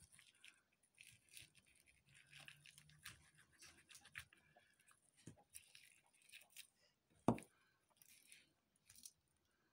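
Faint wet cutting, scraping and tearing as a knife and fingers free the roe sac from a sea bass's belly cavity, with one sharp knock about seven seconds in.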